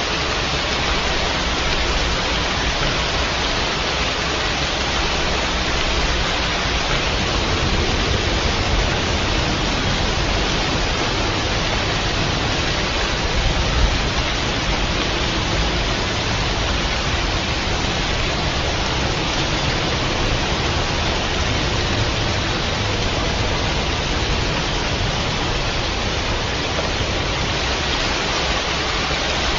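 Steady, heavy rain falling, an even unbroken hiss.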